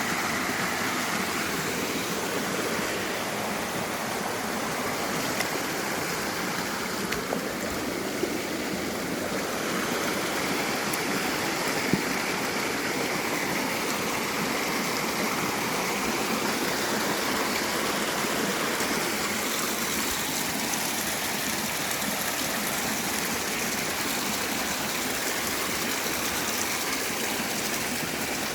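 Mountain stream running full after rain, a steady rush of water over rocks, with a few faint splashes or knocks.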